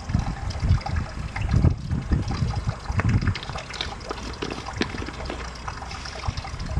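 Pond water trickling and splashing steadily, with scattered small splashes and irregular low rumbles.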